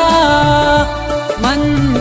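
Shina manqabat (devotional song): a male voice singing long, ornamented held notes over backing music with a bass line.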